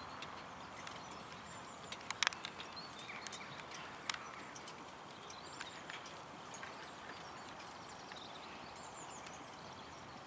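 A horse drawing a four-wheeled carriage over grass: faint hoof steps and the rattle and clicking of the carriage and harness. A cluster of sharp clicks comes about two seconds in.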